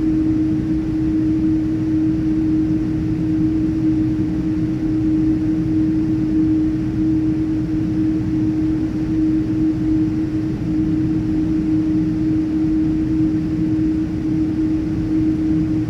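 Cabin noise inside a Boeing 787-9 airliner taxiing on the ground: a steady low rumble with a strong, even hum that holds one pitch throughout.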